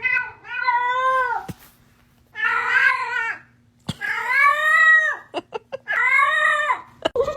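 A domestic cat yowling: four long, drawn-out meows of about a second each, their pitch rising and then falling, the second one rougher. A few short clicks come between the third and fourth calls.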